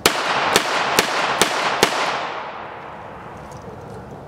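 Smith & Wesson Model 351 PD AirLite .22 Magnum revolver firing five quick shots, about two and a half a second, each sharp crack followed by echo that fades away over the next second or so.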